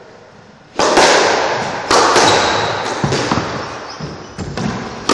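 A squash ball is hit back and forth, with sharp cracks of racket on ball and ball on wall echoing around the enclosed court. Two loud hits come about a second apart in the first two seconds, then several weaker ones.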